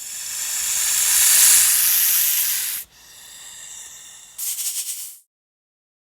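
Snake hissing: one long, loud hiss that swells and cuts off abruptly, then a quieter second hiss, then a brief burst of rapid pulsed hisses.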